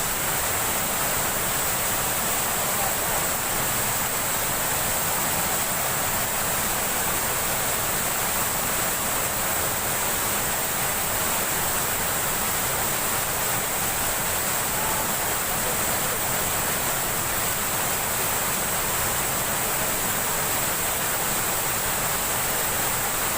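Steady rushing of flowing water, an even unbroken wash.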